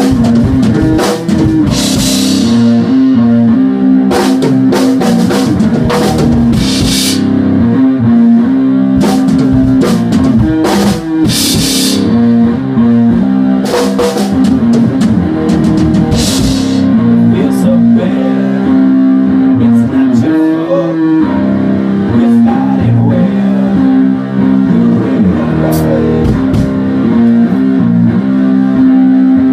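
Live band playing: electric guitar over a drum kit, with cymbal crashes ringing out several times in the first half.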